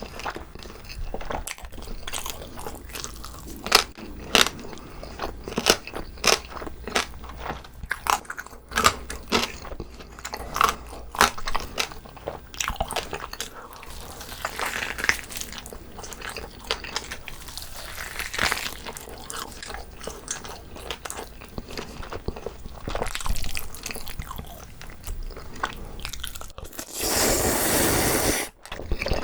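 Close-miked eating of braised pig's trotters (jokbal): wet chewing, biting and lip smacks in a steady run of sharp clicks. Near the end there is a louder noisy rush lasting about a second and a half.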